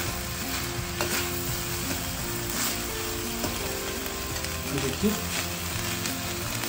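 Vegetable fried rice sizzling in a hot stainless steel kadai while a metal spatula stirs and tosses it to mix in soy sauce, with a few sharp scrapes and clinks of the spatula against the pan.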